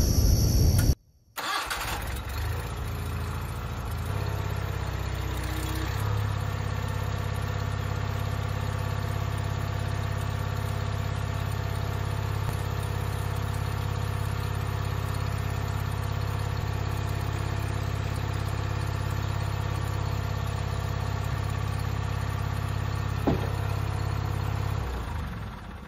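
Ingersoll garden tractor's engine running steadily while its hydraulic front loader lifts a bucket loaded with about 800 pounds, the engine note picking up a little about four and six seconds in. A single short click sounds near the end.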